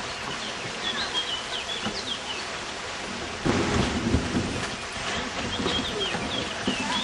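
Steady rushing of river water, with small birds chirping in short runs about a second in and again near the end, and a louder low rumble for under a second midway.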